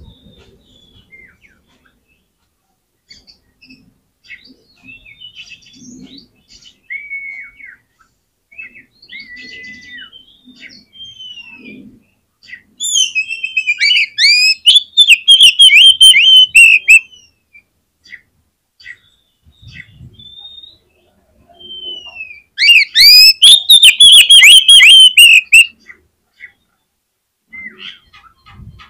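Oriental magpie-robin (kacer) singing: scattered clear whistles and chirps, then twice a loud spell of rapid, repeated notes, the first lasting about four seconds, the second about three.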